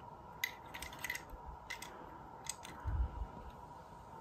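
Faint scattered clicks and light taps of a small die-cast toy car being handled and turned in the fingers, with a soft low bump about three seconds in.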